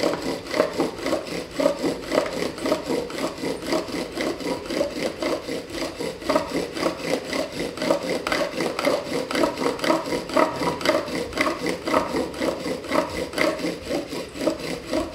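Bow drill worked with long, even strokes: a pine spindle grinding against a pine hearth board, a rhythmic wooden rasping that swells and fades with each pass of the bow. It is the slow, heavy-pressure stage that builds char dust in the notch, with the wood already smoking.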